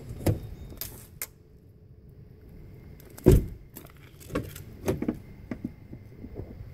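A few short knocks and thuds on a car, the loudest a single heavy thud about three seconds in, with smaller knocks a second or two later.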